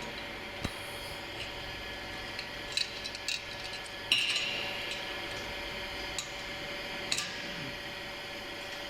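Scattered sharp clicks and clinks of metal parts being handled while a piston filling machine is worked on, about six in all, the loudest about four seconds in with a brief hiss after it. A steady hum with a fixed tone runs underneath.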